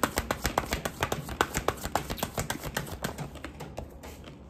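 A deck of tarot cards being shuffled by hand: a quick, uneven run of sharp card-edge clicks and flicks that slows and stops near the end.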